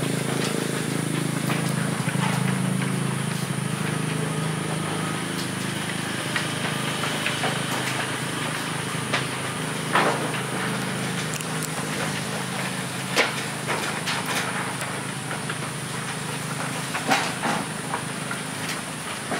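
A steady low machine-like hum that fades slowly, broken by a few sharp knocks.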